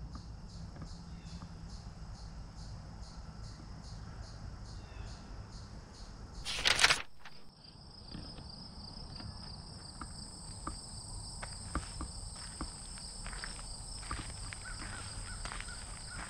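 Insects chirping in high, regular pulses, about three a second. About seven seconds in there is a brief loud rush of noise. After it a continuous high insect trill goes on, with footsteps on a gravel path.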